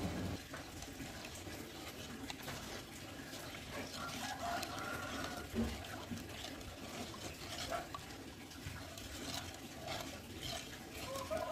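Wooden spatula stirring a thin coconut-milk jelly mixture in a nonstick wok: faint sloshing and light scrapes and taps against the pan. A few faint short calls sound in the background.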